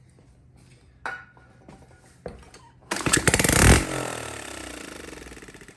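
Honda TRX90 single-cylinder four-stroke engine firing on brake cleaner sprayed into the intake, with no carburetor or exhaust fitted. After a few faint knocks it catches suddenly about three seconds in and revs up sharply. It then winds down and dies over about two seconds as the shot of fuel burns off.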